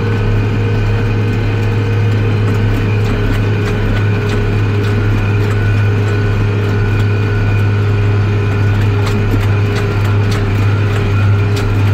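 Case IH Magnum tractor's diesel engine running steadily at road speed under the load of a towed baler, heard from inside the cab: a low, even drone with a steady whine above it. Light clicks and rattles come through in the second half.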